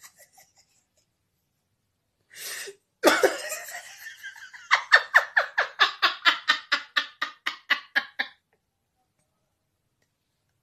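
A woman laughing hard. It starts with a short breath about two seconds in, then a loud outburst, then a long run of rapid "ha-ha" pulses, about five a second, that dies away about eight seconds in.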